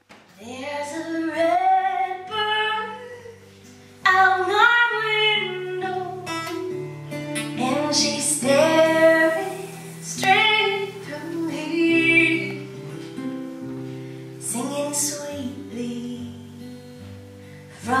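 A woman singing a slow folk song while accompanying herself on an acoustic guitar, played live.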